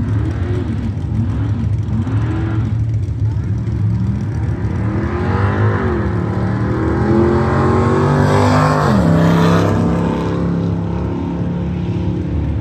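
Drag cars making a quarter-mile pass, among them a cammed LT1 small-block V8 Camaro. First comes engine revving in rising-and-falling blips, then hard acceleration through the gears that grows loudest about eight to nine seconds in. The pitch drops sharply near nine seconds, then the engines run on steadier. The Camaro is running without nitrous: a bent bracket kept the throttle from reaching the wide-open-throttle switch, so the spray never came on.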